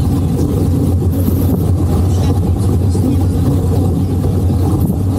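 Boat engine running steadily, a constant low drone with no change in pitch.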